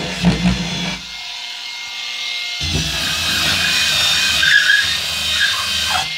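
Handheld electric sander running with its pad pressed against a flat panel, a steady motor whine and sanding hiss; the low hum drops away about a second in and comes back after a second and a half.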